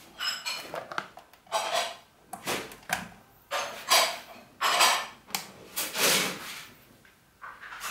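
Handling noises as cables and plugs are moved around the back of a computer-speaker subwoofer cabinet: a series of short knocks, clatters and rustles.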